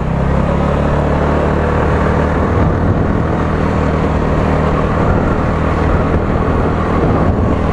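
TVS Ntorq 125 scooter's single-cylinder engine running steadily at cruising speed, with wind rushing over the microphone.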